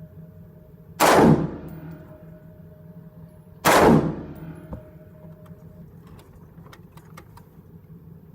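Black Rain Ordnance Fallout 15 AR-15 rifle firing 5.56 two single shots, about a second in and again near four seconds, a slow, deliberate pace of fire.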